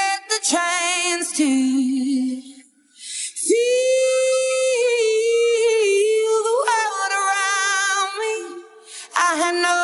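Background song with a sung vocal, long held notes with vibrato, and little else audible.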